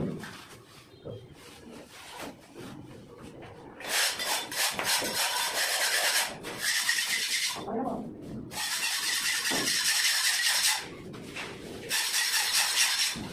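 Hand tools scraping and rubbing cement-sand plaster across a wall, in several rasping stretches of a second or two with short breaks between, after a quieter first few seconds.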